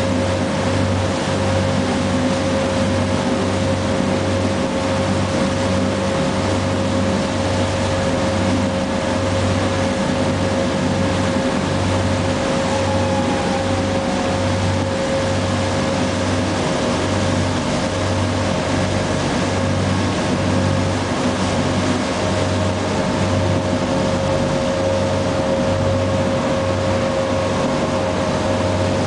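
Bateau Mouche tour boat's engine running steadily under way, a low hum pulsing a little faster than once a second with a steady whine above it, over the rush of churned wake water.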